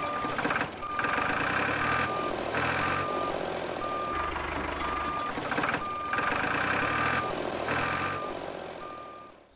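A vehicle's reversing alarm beeps steadily, one repeated tone, over a running engine. The sound fades out near the end.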